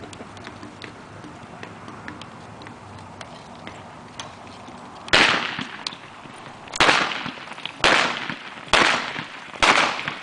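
Five revolver shots with blank loads, fired from horseback at balloon targets in cowboy mounted shooting; they start about five seconds in and come at uneven gaps of about a second, each with a short echo. Before the shots there are only faint, light hoofbeats.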